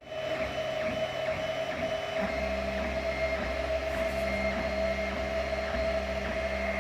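3D printer running, its stepper motors and fans giving a steady whine, with short pitched stepper moves in the first two seconds and a low hum coming in about two seconds in.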